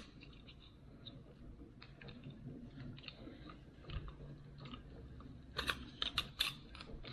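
Faint clicks and rattles of plastic parts being handled, with a quick run of sharper clicks a little past halfway, as the plastic binocular tripod is fiddled with.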